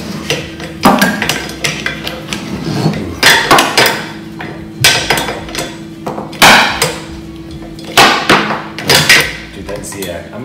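Irregular sharp knocks and clatter, about eight in ten seconds, as a CNC mill's bearing carriage plate is fitted onto and pushed along a square metal rail.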